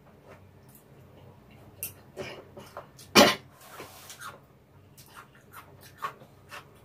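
Close-miked eating sounds of stir-fried ramen noodles: soft chewing and scattered mouth clicks and smacks. One short, louder sharp mouth sound comes about three seconds in, followed by a breathy exhale.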